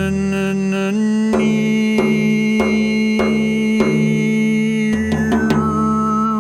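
Music: a held, chanted vocal toning drone with steady overtones, stepping up in pitch about a second in, over drum strokes that come roughly every 0.6 seconds, with a quick cluster of hits near the end.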